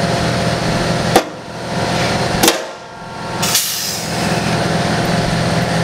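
Pistol-type pneumatic pop-rivet gun setting rivets in sheet steel: two sharp snaps about a second and a half apart as the rivet mandrels break off, then a short hiss, over a steady machine hum.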